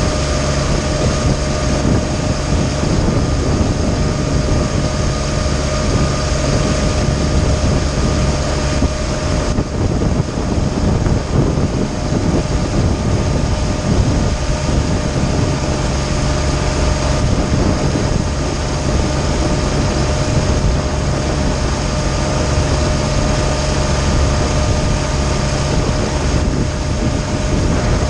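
Tohatsu MFS50 four-stroke outboard motor running steadily with the boat underway, over the rush of water churning past the hull in a choppy sea.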